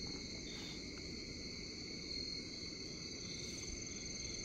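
Steady chorus of crickets, several high continuous trills layered together over a faint low background hiss.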